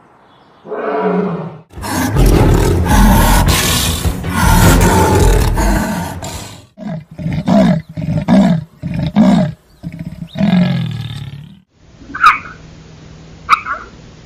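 Leopard snarling and roaring in a fight: a harsh, loud stretch lasting about four seconds, then a string of short growling calls and one longer falling growl. Near the end come two short high squeaks.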